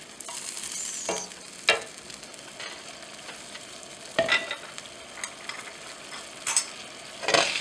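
Wooden spatula stirring cauliflower and potatoes in a nonstick frying pan over a gas flame, the freshly added water sizzling and simmering in the pan, with a few sharp knocks of the spatula against the pan.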